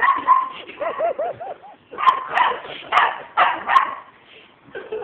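A dog gives a quick run of four or five short whines, then barks about five times in quick succession.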